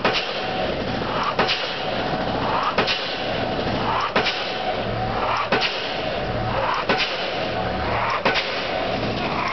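Impact pile hammer on a Junttan crawler piling rig driving a steel pile: seven sharp, heavy blows at a regular beat of about one every 1.4 seconds, each preceded by a short rising whine as the ram lifts, over the steady hum of the rig's engine.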